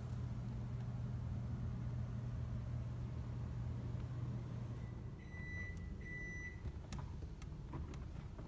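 Steady low electrical hum with two short electronic beeps, one right after the other, about five seconds in, followed by a few faint clicks.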